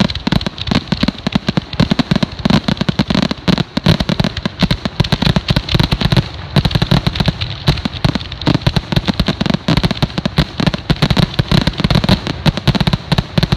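Aerial firework shells bursting in rapid, overlapping succession: a dense, continuous barrage of booms and bangs, several each second.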